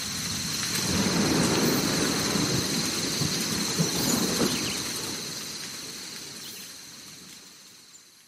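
Rain with a low rumble of thunder that swells about a second in and then slowly fades away, over a steady high-pitched drone.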